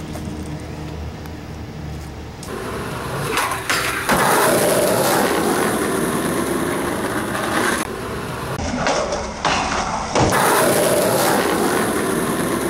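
Skateboard wheels rolling over rough asphalt, a steady gritty rumble that gets louder about four seconds in, with brief dips around the middle.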